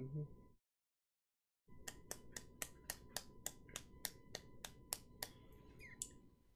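One person clapping: about fifteen quick, even claps, a little under four a second, starting about two seconds in. A brief low sound comes right at the start.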